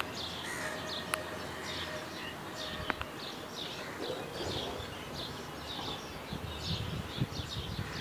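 Birds chirping over and over in short calls, against steady outdoor background noise, with two sharp clicks in the first few seconds.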